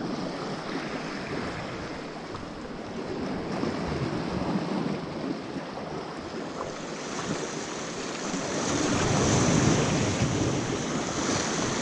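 Sea waves washing against a rocky shore, with wind buffeting the microphone. The wash swells louder about eight to ten seconds in.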